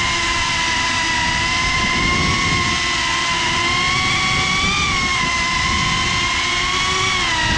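FPV drone's brushless motors and propellers whining, as picked up by the onboard GoPro: a steady high whine whose pitch rises and dips with throttle, going up about five seconds in and down near the end, over a rumble of wind on the microphone.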